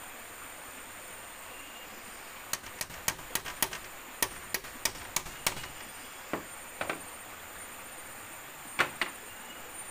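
A claw hammer drives a nail into bamboo slats. About ten quick light taps come at a bit over three a second, then a few scattered knocks, and two louder knocks close together near the end.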